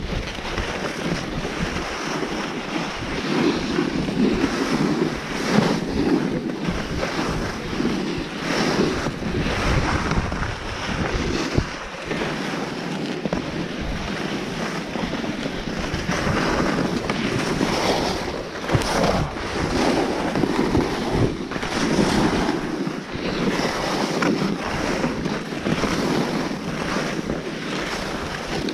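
Wind rushing over a chest-mounted action camera's microphone while skiing downhill, mixed with the skis hissing and scraping over packed snow. The noise rises and falls in surges every second or two.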